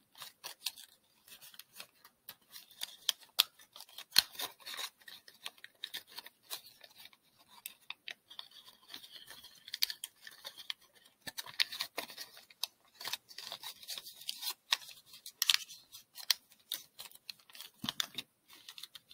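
Origami paper being folded and pressed by hand: a continual run of crisp paper crackles and sharp little clicks as the creases are worked.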